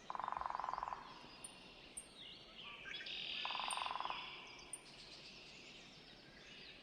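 Downy woodpecker drumming on wood: two short, even rolls of rapid taps, the first about a second long at the start and the second about half a second long some three seconds later, with faint higher calls of other small birds around them.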